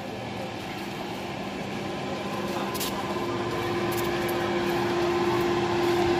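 A steady mechanical hum with a held droning tone, growing gradually louder.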